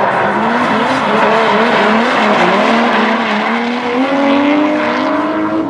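Two drift cars' engines revving hard together, their pitch wavering up and down as the throttles are worked and climbing slowly toward the end, over the hiss and squeal of sliding tyres.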